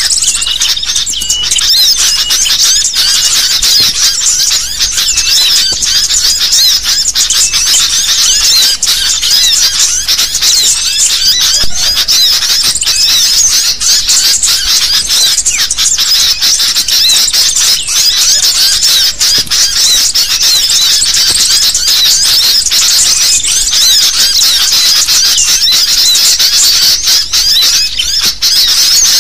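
A flock of sooty-headed bulbuls (kutilang) calling and chattering over one another in a dense, unbroken chorus of high chirps: a lure recording used to draw bulbuls in for trapping.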